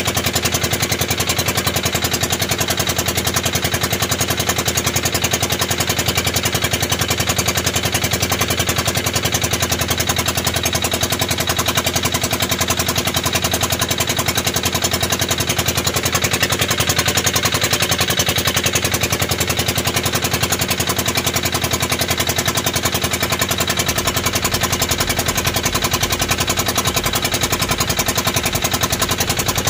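Outrigger banca boat's engine running steadily under way, a loud, fast, even rattle of exhaust pops.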